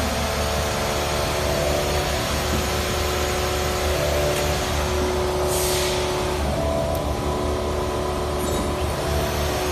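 Steady drone of running machinery, a constant low hum with several steady tones over it. A brief hiss comes about halfway through.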